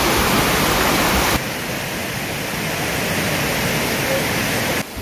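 Rushing water, a steady hiss with no distinct tones. It drops abruptly to a quieter level about a second and a half in, and again near the end.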